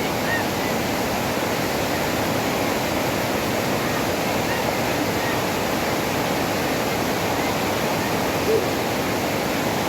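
Rushing floodwater: a steady, even rush of water.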